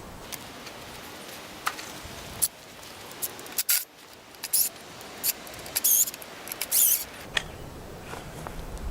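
Wood screws being backed out with a square-drive screwdriver: scattered sharp clicks, then several short, wavering high-pitched squeaks of the screws turning in the wood, mostly in the second half.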